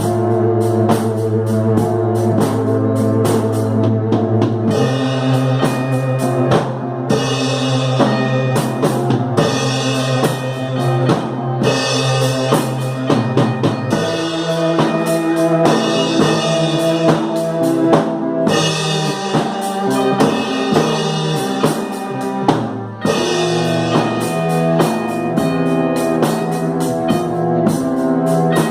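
Instrumental psychedelic rock band jamming: a drum kit keeps a steady beat with bass drum, snare and regular cymbal crashes under sustained electric guitar and synthesizer chords. The chords shift about five seconds and again about fourteen seconds in, with a short break in the beat near the end.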